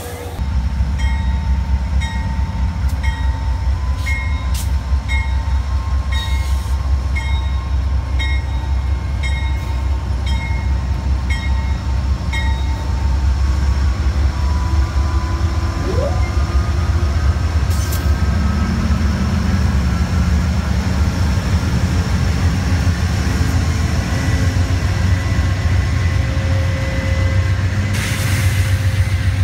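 Amtrak GE Genesis diesel locomotive rumbling as it passes with its train, its bell ringing about one and a half times a second for the first dozen seconds, then falling silent. A short hiss near the end.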